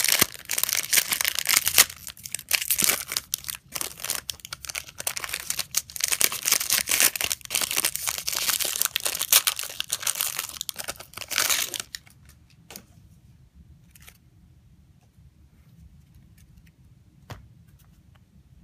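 Trading-card pack wrappers being torn open and crinkled for about twelve seconds, then only a few faint clicks.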